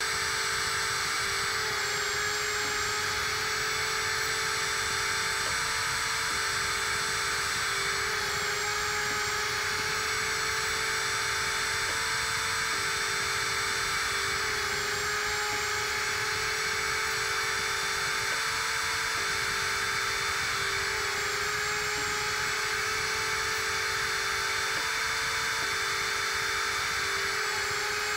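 Small high-speed drill spindle of a DIY CNC PCB driller running steadily with a whine, under a lower hum that steps between two close pitches every second or two.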